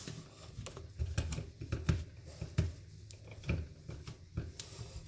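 Scrubbing a sink with a magic eraser sponge: irregular light taps and clicks, with low bumps of handling noise from the camera held at the same time.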